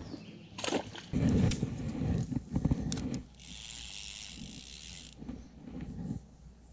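Handling noise from a fishing rod and reel: clicks, knocks and rustles over the first three seconds, then a steady hiss lasting under two seconds that starts and stops abruptly.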